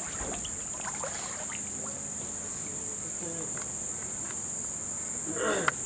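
Chorus of insects giving a steady, unbroken high-pitched trill.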